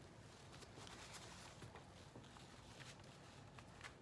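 Near silence, with faint light taps and rustles of a brush and paper napkin wiping and spreading glue inside a small wooden frame.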